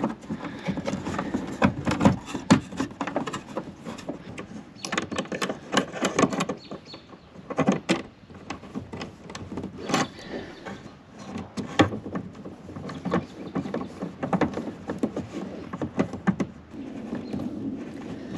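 Irregular knocks, clicks and scraping of parts and tools being handled, with a few sharper raps scattered through.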